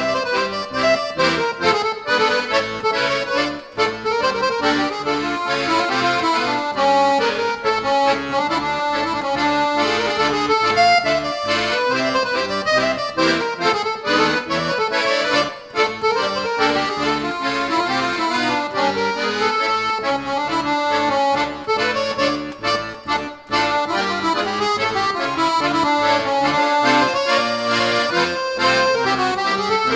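Piano accordion playing a Hungarian csárdás: a moving melody over a steady, rhythmic bass.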